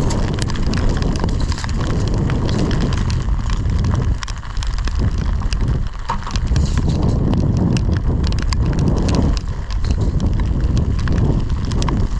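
Wind rumbling on the microphone, with many small clicks and knocks scattered throughout.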